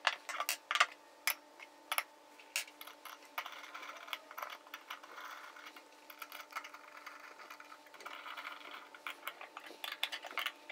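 Metal clicks and clinks as M8 steel bolts are turned in with a T-handle hex key and aluminium mount parts are handled and set together. The sharp ticks come irregularly, with a denser run of small ticks through the middle.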